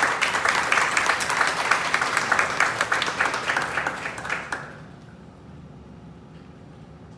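Audience applauding, a dense patter of clapping that dies away about four and a half seconds in.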